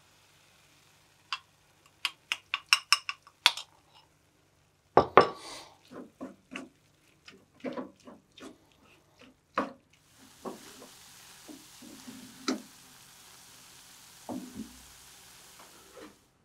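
Wooden spatula knocking and scraping in a skillet as ground taco meat is stirred, with a quick run of sharp clicks about two seconds in. From about ten seconds in, a steady sizzle of the meat frying runs under the stirring.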